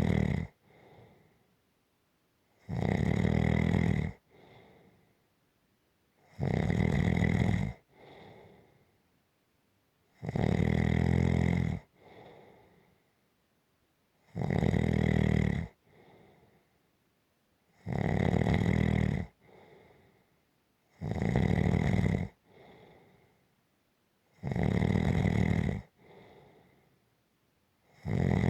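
Rhythmic snoring: a loud snore about every three and a half seconds, each followed by a short, faint breath.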